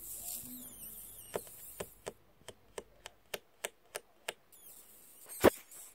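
A run of light, sharp taps, about three a second, followed by one much louder knock near the end, with faint high squeaks between.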